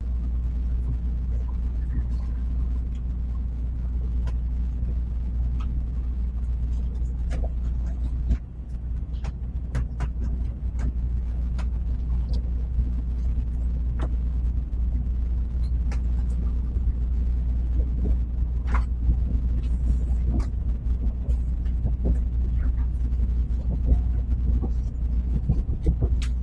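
Steady low rumble inside a Tokaido Shinkansen car, with scattered small clicks and knocks. The level dips briefly a little past a third of the way in.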